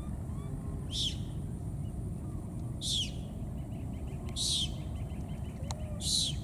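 Bird chicks giving high, piercing calls, four in all about one and a half seconds apart, each sliding down in pitch, over a steady low rumble.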